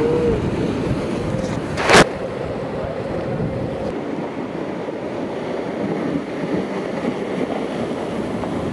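Breaking ocean surf with wind noise on the microphone, a steady rushing noise, broken by one sharp knock about two seconds in.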